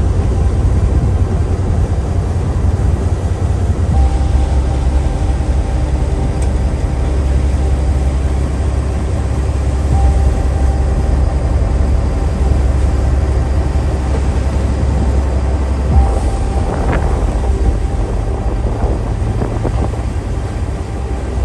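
Fishing boat's engine running steadily: a heavy low rumble with a steady hum above it, the rumble shifting about four seconds in and again near sixteen seconds.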